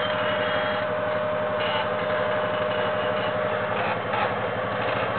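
Honda Foreman ATV engine running at a low, steady idle as the quad crawls down over rocks.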